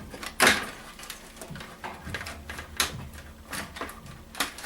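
Cutters snipping through a computer's internal wires: a series of sharp snips, the loudest about half a second in.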